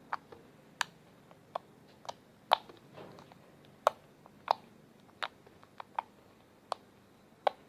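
Homemade slime being handled, giving sharp sticky pops and clicks at irregular intervals, about one or two a second.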